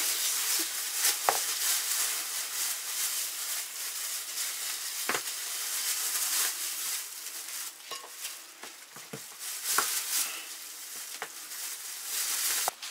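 Thin plastic bags crinkling and rustling as pieces of salted pork fat are packed into them, with a few light knocks.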